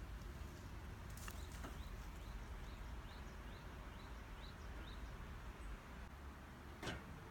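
A bird calling outdoors: a run of short, evenly repeated rising chirps, about two to three a second, over a low steady background hum. There are a couple of faint clicks early on and a sharper knock near the end.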